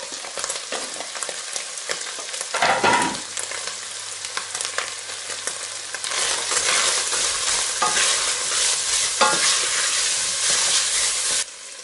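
Chopped onion and beef cubes sizzling in hot oil in a cooking pot while being stirred, with a few scrapes of the utensil against the pot. The sizzle grows louder about six seconds in.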